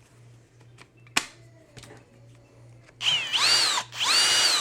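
Kobalt 24V brushless drill run in two short trigger pulls: each time the motor whine rises quickly to speed, holds briefly, then stops almost at once under the electronic brake. A single sharp click comes about a second in, before the first run.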